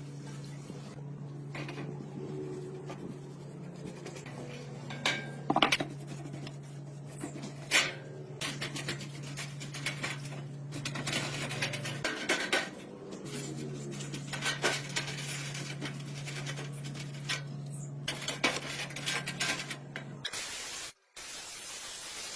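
Metal parts clinking, knocking and scraping against each other in irregular bursts, over a steady low hum that drops out briefly past the middle and stops near the end.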